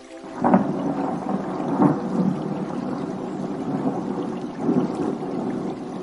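Thunder rumbling, starting suddenly a moment in, with surges about half a second, two seconds and five seconds in, then easing off near the end.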